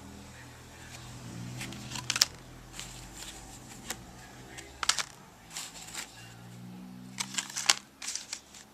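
View-Master reels and their cases being handled: rustling with scattered sharp plastic clicks, the loudest about two, five and seven and a half seconds in.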